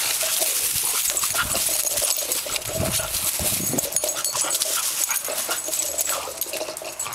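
An English bulldog making excited dog noises as she races around with her ball.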